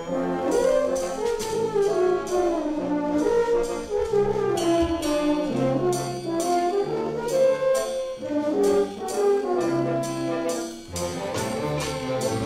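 Full orchestra playing a waltz, with brass prominent in a melody that rises and falls over a steady beat.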